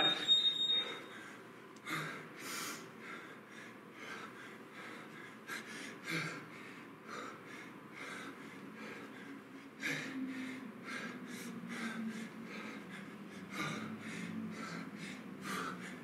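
A man breathing hard under exertion during a kettlebell set, with forceful exhales about once a second. A gym interval timer gives one short high beep right at the start.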